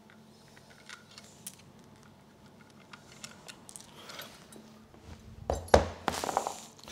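Light metallic clinks and taps from aluminium engine cases being handled, with a few louder knocks and a short clatter about five and a half seconds in.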